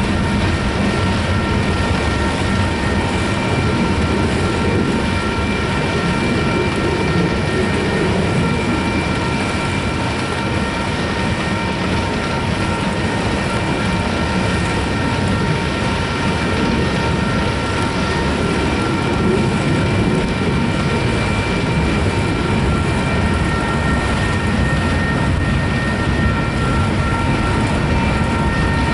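Freight cars of a manifest train rolling past: a steady rumble of wheels on rail, with several steady high-pitched tones ringing over it.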